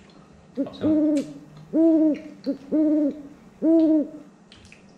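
Owl hoots, laid in as an edited sound effect: about four long, even-pitched hoots roughly a second apart, with two short ones among them.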